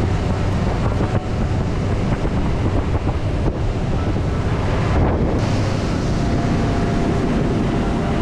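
Wind buffeting the microphone of a center-console boat running on a plane, over the steady drone of its outboard motor and rushing water.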